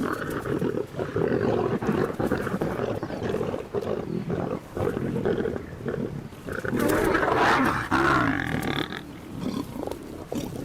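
Lions snarling and growling over a kill, with a louder, pitched snarl about seven seconds in.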